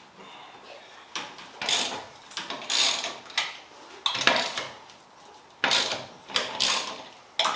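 Ratchet wrench and metal hand tools working on the car's bolts: irregular bursts of clicking and clanking.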